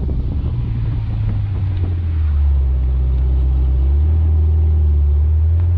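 Engine of a red Ferrari convertible running at low, steady revs as the car rolls slowly, heard from the open cockpit; the low note gets a little louder from about two seconds in.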